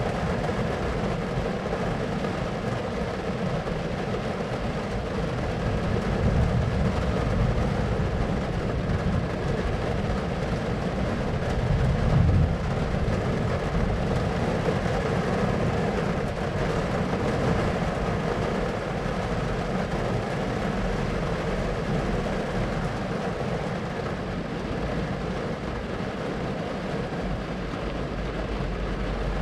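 Thunderstorm ambience: a steady low rumble with a noisy wash over it, and a heavier rumble swelling briefly about 12 seconds in.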